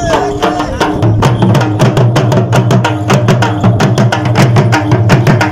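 Several dhol drums beaten with sticks in a fast, even rhythm. A steady low tone joins beneath them about a second in.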